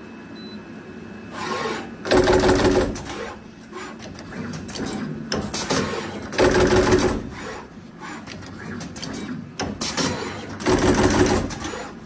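Automatic wire cutting, stripping, crimping and tinning machine running its cycle. From about a second in there are three loud bursts of rapid clicking roughly four seconds apart, with lighter clicks between them.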